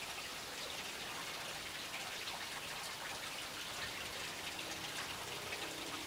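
Small garden fountain's water splashing and trickling steadily.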